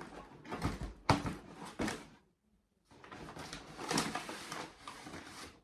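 Cardboard packaging being opened and handled, rustling and scraping with a few sharp knocks, stopping briefly after about two seconds and then carrying on.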